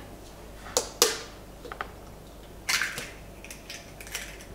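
An egg being cracked: two sharp knocks about a second in, then the shell crackling as it breaks, with a few light clicks near the end.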